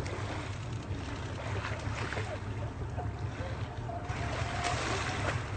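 A boat's motor running steadily with a low rumble, under water and wind noise, with a few faint short calls or voices.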